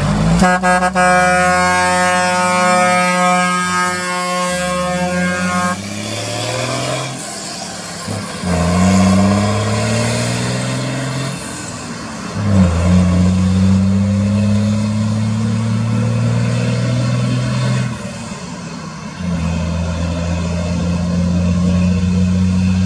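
Truck air horn held for about six seconds. Then the truck's diesel engine accelerates, its note climbing and dropping back at each gear change several times.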